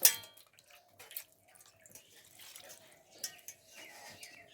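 Water being poured and trickling into a cooking pot, opening with one sharp ringing clink of the vessel, then faint drips and small clicks.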